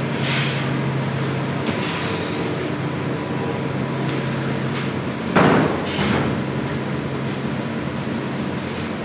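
Steady low mechanical hum of room machinery, with a single loud knock a little past halfway.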